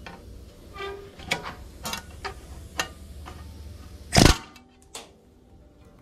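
Pneumatic rivet gun (air hammer) hammering a solid rivet into scrap aluminium angle in one short loud burst about four seconds in, with a few light metallic clicks and taps from handling the gun and bucking bar before it. The air pressure is set a little too high.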